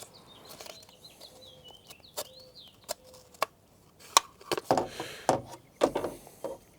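Small metal parts of a truck door handle and lock clicking and knocking as they are handled and fitted into a new handle: scattered sharp clicks, a loud one about four seconds in and a quick cluster near the end.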